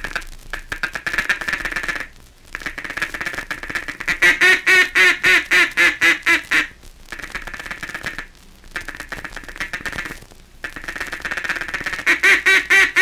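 Mallard duck call blown in the feeding chuckle: a soft, very rapid ticking chatter made with the tongue, broken twice by runs of louder quacks at about four a second, once midway and again near the end. It is heard off an old 78 rpm record.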